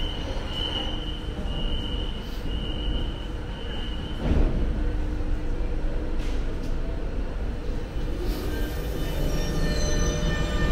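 Subway train at a station platform: a high beep repeats about once a second and stops a few seconds in, a short hissing burst follows about four seconds in, and near the end a whine of several steady tones builds.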